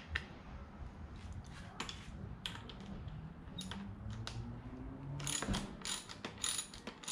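Hand socket ratchet clicking as it undoes a handguard bolt at the handlebar end: a few scattered clicks, then a quick run of rapid ratchet clicks from about five seconds in.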